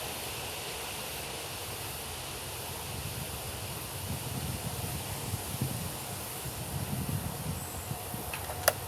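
Wind buffeting the microphone: a steady hiss with gusty low rumbling through the middle. Near the end comes a single sharp click.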